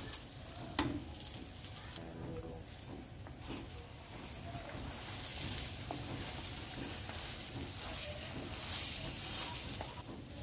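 Butter sizzling in a frying pan under a tortilla wrap toasting on low heat, the sizzle growing louder about halfway through. One sharp tap sounds about a second in.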